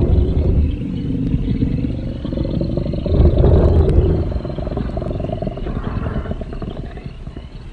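Designed Spinosaurus vocalization: a long, deep growling rumble with a rapid pulsing texture that swells about three seconds in, then fades toward the end.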